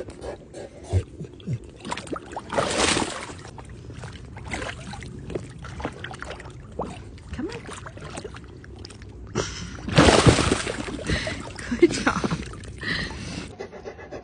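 Pool water splashing and sloshing as a mastiff puppy moves about in it, with louder splashes about three seconds in and again around ten seconds in.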